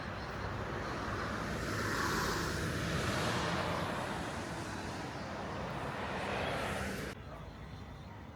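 Road vehicle noise: a steady rush that swells through the middle and cuts off abruptly about seven seconds in.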